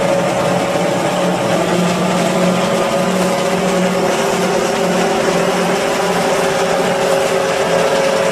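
Fox Max II self-propelled forage harvester working under load while chopping standing maize: its engine and chopping and blowing machinery run steadily, with a constant high whine over a lower hum.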